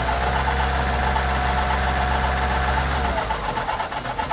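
A motor running steadily with a low hum and a thin whine, then winding down and stopping about three seconds in.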